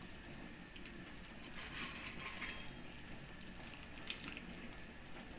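A few faint, soft plops as ghee-fried cashews and raisins are dropped by hand into thick, milky payasam in a pot.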